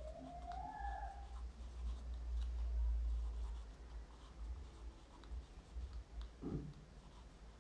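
Pencil writing on lined notebook paper: faint short scratching strokes over a steady low hum, with a brief rising tone in the background in the first second or so.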